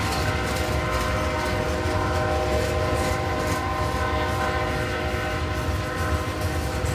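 Diesel freight locomotive's multi-chime air horn sounding one long steady chord for about six seconds, then cutting off near the end. Underneath is the low rumble of the passing locomotives.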